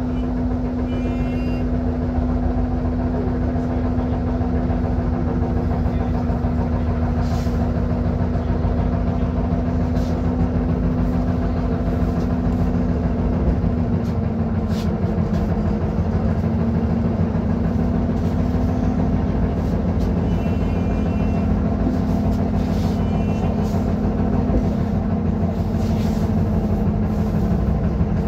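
Inside a YuMZ-T2 trolleybus under way: a steady electric hum over the rumble of rolling and the body rattling, with the hum's pitch shifting slightly about halfway through. A few short clicks and squeaks come from the cabin.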